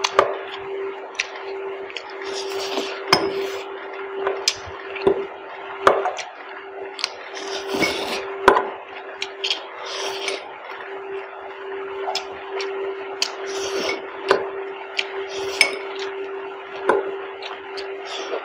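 Close-miked eating of spicy Maggi instant noodles: slurping and chewing, with a metal fork clicking against glass bowls many times, over a steady hum.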